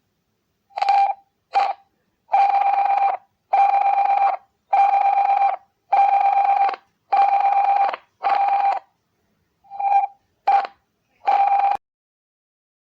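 Liechtenstein's emergency alert tone: an electronic beep at one steady, fairly high pitch, sounded in a pattern. First come two short beeps, then six longer ones with even gaps, then a pause, then two short beeps and a slightly longer one.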